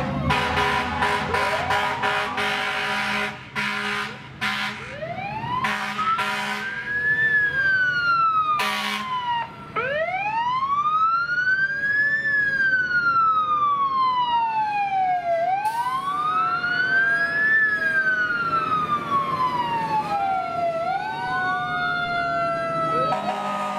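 Emergency vehicle sirens wailing, rising and falling slowly and overlapping one another, with horns blaring in the first several seconds.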